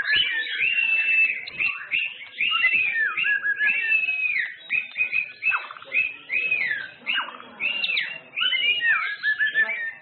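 White-rumped shama singing: a loud, continuous string of clear whistled phrases that slur up and down, one after another with short gaps.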